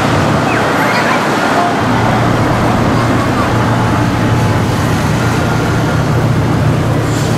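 Hiroden Green Mover low-floor tram heard from on board: a steady low running hum of the motors and wheels on the rails, with faint voices.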